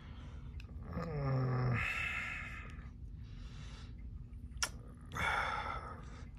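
A man's short "hmm", falling in pitch, followed by breathy exhales, with one faint click between the breaths.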